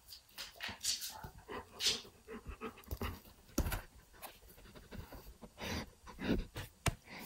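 German Shepherd panting and sniffing close to the microphone, in quick irregular breaths, with a few soft knocks.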